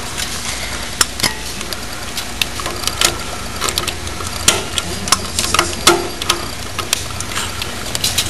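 Irregular clicks and light metallic taps from hands working at a starter solenoid's terminals while remote starter switch leads are placed, over a steady low hum.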